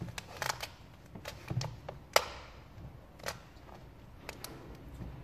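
Avery gloss black vinyl wrap film crackling and clicking as it is pulled and pressed down over a grille with a squeegee: scattered sharp clicks and crinkles, the loudest about two seconds in.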